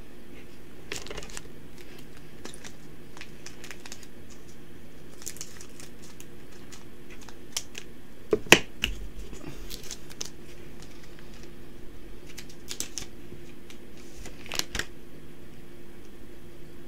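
Yu-Gi-Oh trading cards being handled and flicked through, scattered clicks and short rustles of card stock, the sharpest tap about eight and a half seconds in.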